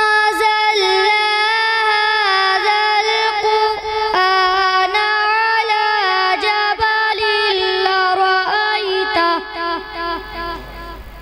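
A boy's high voice reciting the Quran in melodic tilawat, holding long ornamented notes, then breaking into short wavering notes and fading as the phrase ends near the end.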